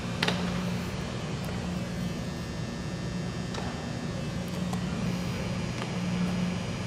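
Steady low hum of a large indoor practice hall, with one sharp pop about a quarter second in as a baseball lands in a leather fielder's glove.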